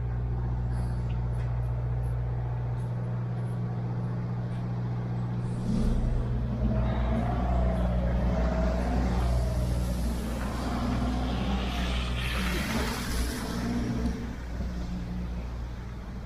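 Road traffic on a city street: a steady low engine hum that swells about six seconds in as vehicles pass, with a wavering engine whine and, near the thirteen-second mark, a burst of hiss.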